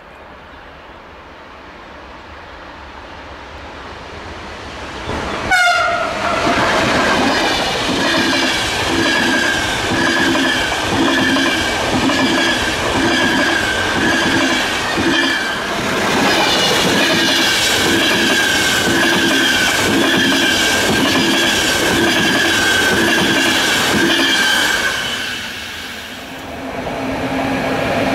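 An electric passenger train approaches and passes close at speed. About five seconds in the locomotive rushes past with a quickly falling whine. The coaches then roll by with a steady high tone over a regular clickety-clack of wheels on rail joints for about twenty seconds. Near the end the sound drops away and a second electric locomotive, hauling a freight train, arrives with a steady hum.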